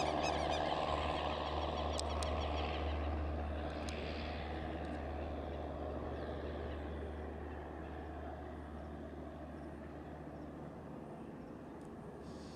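Light single-engine propeller aircraft at takeoff power, its engine and propeller drone fading steadily as it climbs away.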